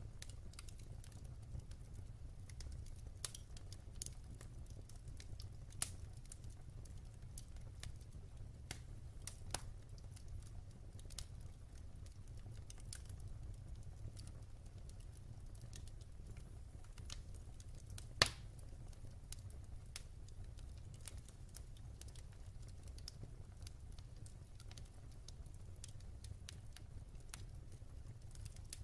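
Wood fire burning in a fireplace: a steady low rumble of flames with scattered sharp crackles and pops, one louder pop about two-thirds of the way through.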